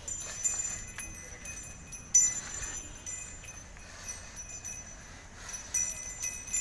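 A bell hung at a bull's neck jingling and clinking irregularly as the bull walks, loudest about two seconds in, with a quick run of rings near the end.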